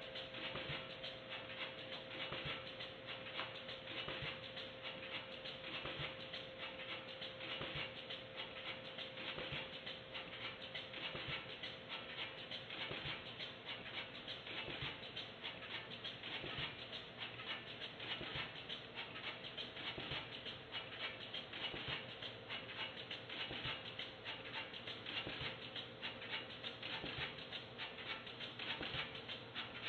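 Automated pouch-converting machinery running: a dense, irregular clatter of small clicks and ticks over a faint steady hum.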